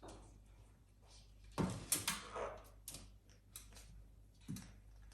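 A few scattered knocks and clatters, the loudest pair about two seconds in, then several lighter taps.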